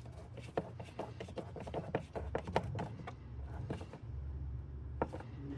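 Clicks and taps of the plastic air filter housing and intake hose being handled and fitted back together by hand, over a steady low hum.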